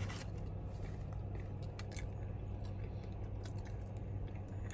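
A person chewing a mouthful of Italian hoagie, with faint small wet mouth clicks, over a steady low hum.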